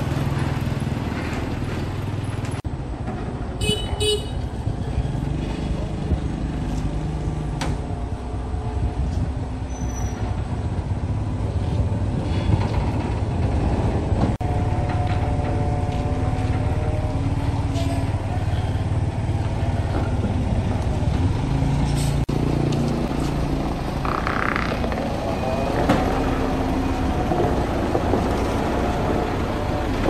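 Diesel engine of a heavy truck tractor running under light load, its pitch rising and falling as the rig slowly maneuvers a long loaded log trailer.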